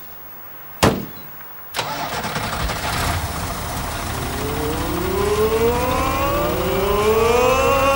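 A sharp slam of the Magirus Deutz gritter lorry's cab door just under a second in. About a second later the lorry's diesel engine starts and runs, and over the last few seconds its pitch rises steadily as it revs up.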